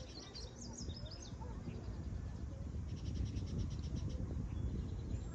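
Birds chirping in the first second, then a fast trill of about ten ticking notes a second lasting a second and a half, over a steady low rumble on the microphone.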